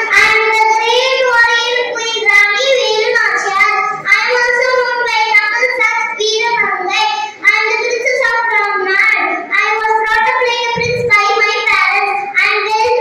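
A young girl singing solo into a stage microphone without instrumental accompaniment, one voice holding and gliding between notes.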